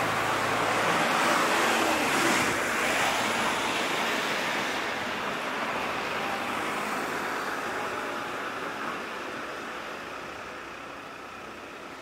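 A motor vehicle passing close by, its engine hum and tyre noise fading steadily as it moves away.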